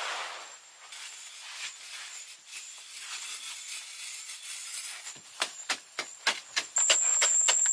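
Faint scraping and rustling, then from about five seconds in a hand tool striking rapidly and evenly, about four blows a second. A steady high-pitched whine joins near the end.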